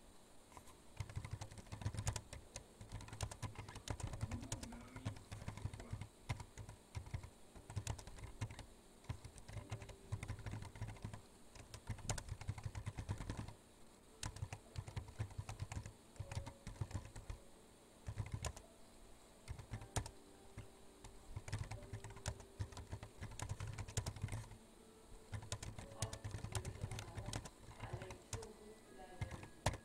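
Typing on a computer keyboard: runs of quick key clicks broken by several short pauses.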